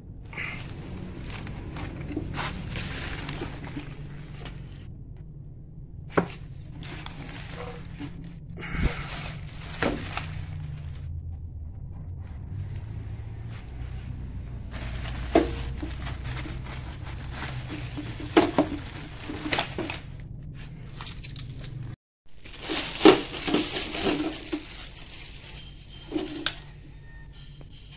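Unboxing handling noise: plastic wrapping crinkling and rustling around coiled welding cables, with scattered knocks and clunks of cables and hands against the welder's sheet-metal case. A steady low hum sits underneath until it cuts off about three quarters of the way through.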